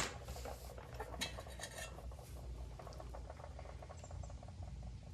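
A brake caliper being slid back on over new front brake pads: a sharp metal click at the start, then light scraping and small clicks of metal on metal.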